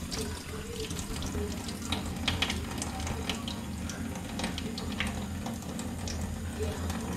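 Kitchen tap running into a stainless steel sink, with short scattered splashes and clicks as hands work fresh anchovies under the stream.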